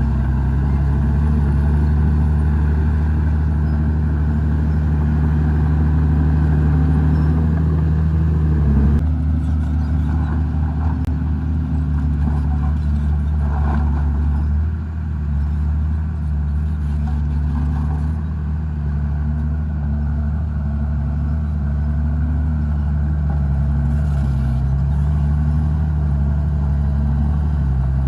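Komatsu D51PX bulldozer's diesel engine running steadily. About nine seconds in it eases off and the higher clatter drops away. In the later part the engine speed rises and falls over and over as the dozer works.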